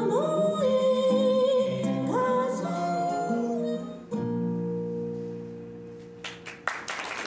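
A song sung to acoustic guitar, ending about four seconds in on a final strummed chord that rings out and fades. An audience starts applauding near the end.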